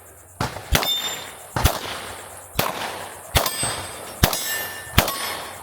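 A string of pistol shots at about one a second, with steel targets ringing on the hits.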